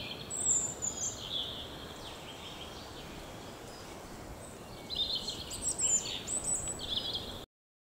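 Small songbirds singing in woodland over a steady background hiss, in two spells of quick high chirping phrases, one at the start and one from about five seconds in. The sound breaks off abruptly just before the end.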